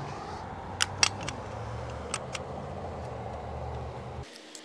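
A few sharp metallic clicks and taps, a metal antenna mounting bracket being handled and fitted, over a steady low rumble like distant traffic; the rumble cuts off abruptly near the end.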